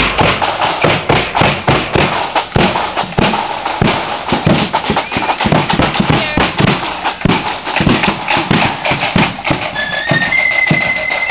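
Marching band playing, with a fast, dense run of drum strikes over a high melody. Near the end a single high note is held and steps up in pitch.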